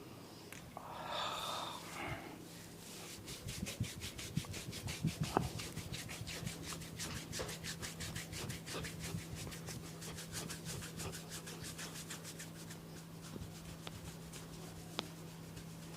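Hands massaging a person's head, skin and hair rubbed in quick, even strokes, about four a second.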